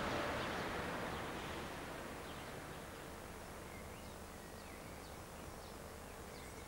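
Outdoor ambience: a steady rushing noise that fades over the first couple of seconds, with faint, scattered bird chirps.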